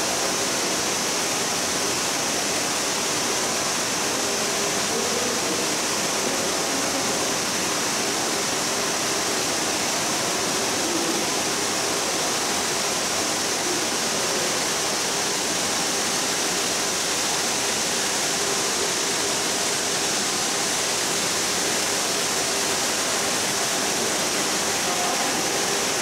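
Fukuroda Falls, a wide multi-tiered waterfall spilling over a broad rock face, making a steady, unbroken rush of falling water.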